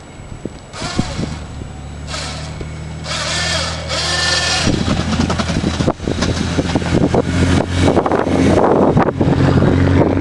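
Car engine working under load as it pushes snow with a plow. The engine hum comes in about a second in and gets louder and heavier about halfway through, with bursts of rushing noise over it.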